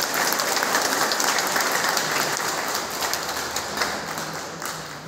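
Audience applauding with many hands clapping, the applause thinning out and dying away near the end.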